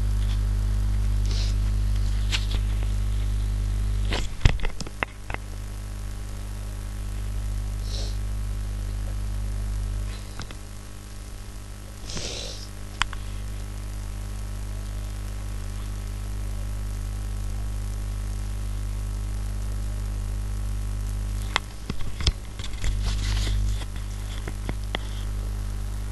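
Steady electrical mains hum with a buzzy edge, picked up by the recording microphone, with a few short sharp clicks about four seconds in and again near the end.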